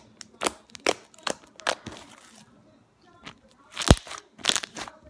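Slime being squeezed and poked by hand, making irregular sticky crackles and pops, the loudest about four seconds in.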